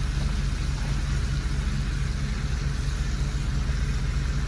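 Semi-truck diesel engine idling: a steady low rumble heard from inside the cab.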